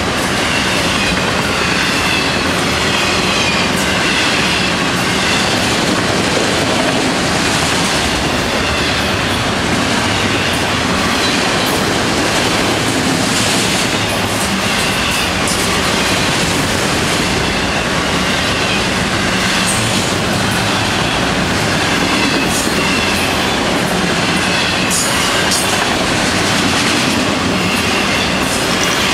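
Autorack freight cars rolling past: a steady loud rumble of steel wheels on the rails, with clicking over the rail joints and a faint, wavering wheel squeal.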